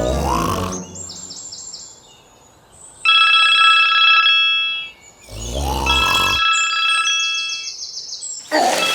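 Electronic sound effects: rapid high chirps, then a steady ringing tone like a phone ring, a swoop about five seconds in, and the ringing again.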